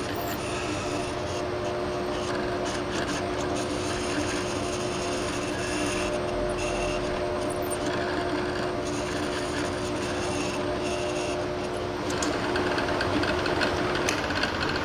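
Workshop tool noise: a continuous rasping, rubbing sound over a steady motor hum, and the hum stops near the end.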